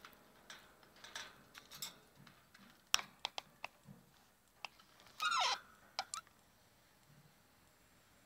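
Budgerigars cracking and husking seeds with their beaks: a scatter of small sharp clicks and cracks. One short chirp, falling in pitch, comes about five seconds in.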